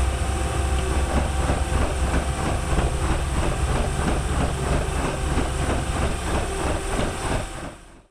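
Mazak Integrex mill-turn broaching (shaping) a square hardy hole: a non-rotating cutting tool is driven in and out in a quick, even rhythm of strokes over a steady machine hum. The sound fades out near the end.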